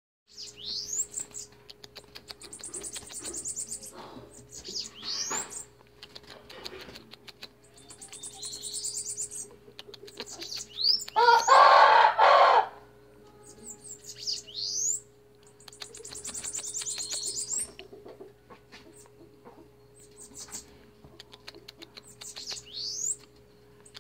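Bananaquit song: short high notes sweeping upward alternate with high buzzy trills a second or two long, repeated about a dozen times. Around the middle comes a louder rustling burst lasting about a second and a half.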